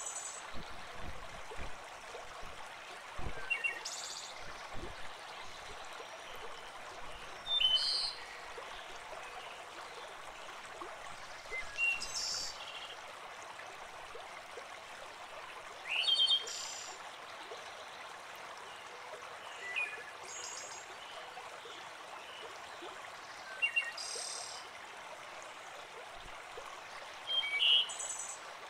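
Shallow stony river running: a steady rush of water over stones, with a bird giving short high calls about every four seconds.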